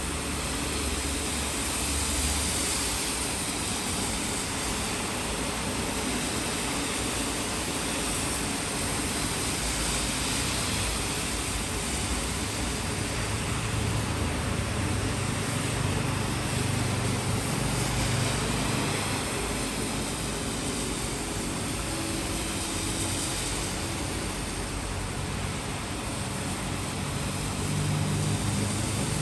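Steady city rain falling, heard as an even hiss, with a low rumble underneath that swells now and then.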